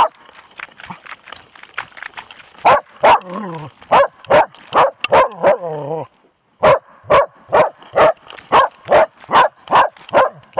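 A young moose-hunting dog barking at bay on a moose, heard close up from its own harness: a run of short, loud barks about two a second, with two longer, falling whining barks in the middle, a short break, then steady barking again.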